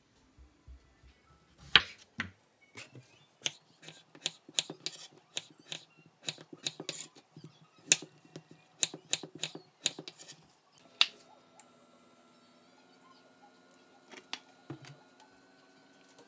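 Chef's knife cutting peeled raw potatoes into wedges on a wooden cutting board: a run of sharp, irregular knocks as the blade strikes the board. For the last third the knocks stop and a faint steady hum of several tones takes over from the hob heating the frying pan of oil, with a couple of light knocks.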